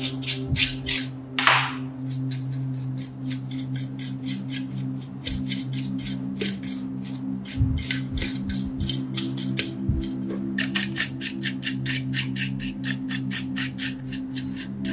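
A bristle brush scrubbing the cassette mechanism and then the circuit board of an old stereo radio-cassette, in quick even strokes of about four a second, strongest near the start and again from about ten seconds in. A brief hiss comes about a second and a half in.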